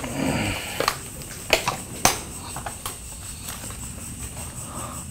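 Footsteps over dry leaf litter and debris, with a rustle just after the start and several sharp cracks, like dry wood or twigs snapping underfoot, spaced about half a second to a second apart. A thin, steady high tone sits faintly underneath.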